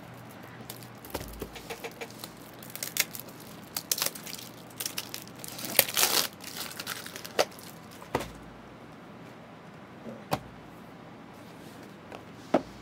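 Shrink-wrapped cardboard boxes of trading cards being handled and moved about: crinkling plastic wrap and scraping cardboard, with a few duller knocks as boxes are set down. The rustling is busiest and loudest about halfway through.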